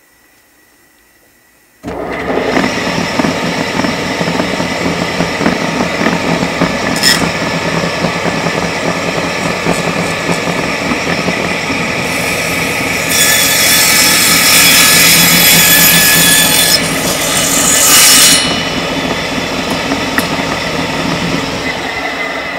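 Table saw switched on about two seconds in and running steadily. From about halfway in, the blade cuts through a wooden block for several seconds, louder and brighter, then runs freely again.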